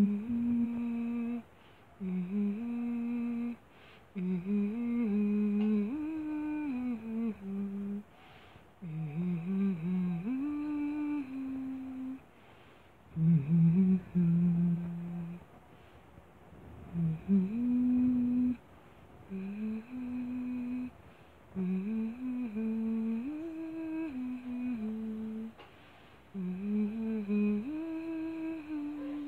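A person humming a slow lullaby tune to put a kitten to sleep, in short melodic phrases of held notes with brief pauses between them.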